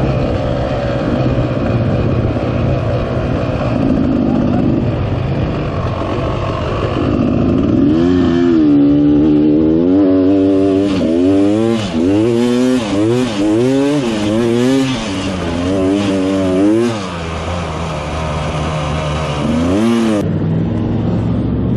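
Dirt bike engine ridden through soft sand, heard from the handlebars, running steadily at first. About halfway through, its note rises and falls again and again, roughly once a second, as the throttle is opened and closed, with one more rise and fall near the end.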